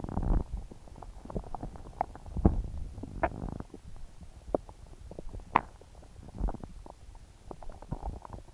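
Upset stomach gurgling and growling: an irregular run of low rumbles and small pops, with a few brief higher squeaks about two, three and five and a half seconds in.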